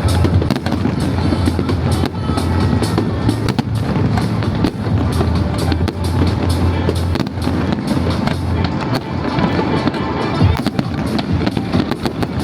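New Year fireworks going off with many quick bangs and crackles, over music with a steady heavy bass.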